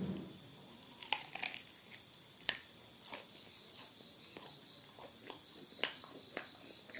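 Close-up eating sounds: biting into and chewing a piece of fried meat, with crunchy bites and sharp wet mouth clicks and smacks at irregular intervals, the loudest about a second in and near the end.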